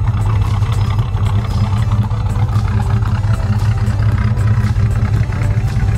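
Chrysler Valiant sedan's engine idling, a steady low exhaust rumble heard close to the tailpipe.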